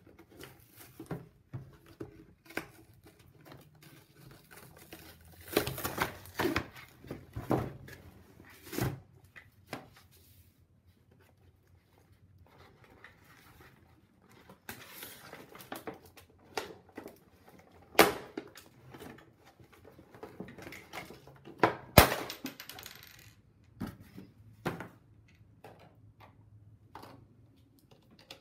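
Polly Pocket playset's clear plastic blister packaging being handled and pried open by hand: irregular crinkling, rustling and clicking, with two sharp plastic snaps in the second half, the second one the loudest.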